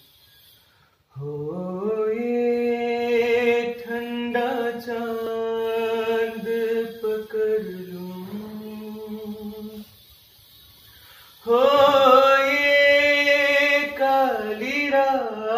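A young man singing a Hindi song solo in long held, drawn-out notes. There are two phrases with a short pause about ten seconds in, and the second is louder.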